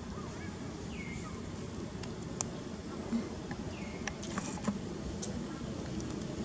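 Outdoor ambience: a steady low rumble, with two faint short chirps, about a second in and about four seconds in, and a few soft clicks.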